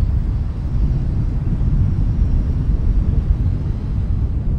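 Steady low outdoor rumble with no distinct events: wind buffeting the microphone over the distant hum of a city.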